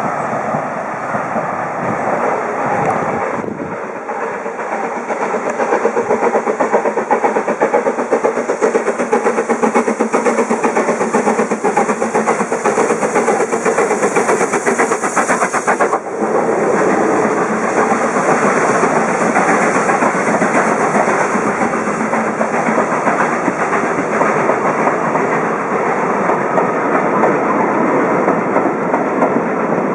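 A BR Standard Class 9F 2-10-0 steam locomotive, 92214, working past with a train, its exhaust beating in a fast, steady rhythm. From about halfway through, the coaches roll by with a clickety-clack of wheels over the rail joints.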